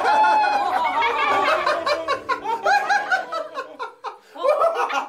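Several people laughing together in puppet-character voices: a steady run of short, pitched 'ha-ha' bursts, with a brief break about four seconds in.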